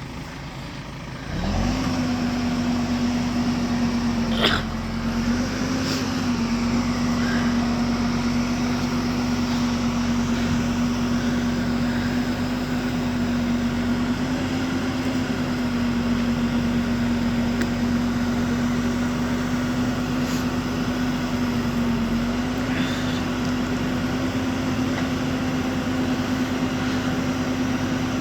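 Heavy diesel engine revving up about a second in and then held at high, steady revs under load, with a single sharp knock a few seconds later.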